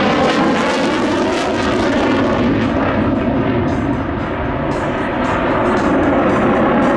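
Sukhoi Su-27's twin AL-31F turbofan jet engines running loud and steady, dipping slightly about four seconds in.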